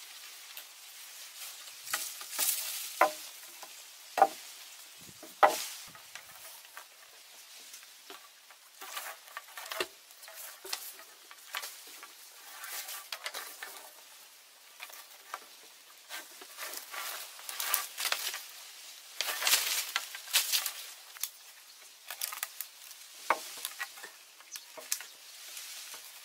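Vine being pulled and wrapped around wooden poles to lash them together, a rustling, scraping sound with many irregular small clicks. A few sharper knocks come in the first several seconds.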